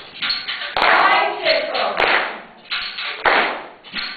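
Rhythmic group clapping, roughly one and a half claps a second, each clap ringing briefly in the hall, with shouted voices among the claps.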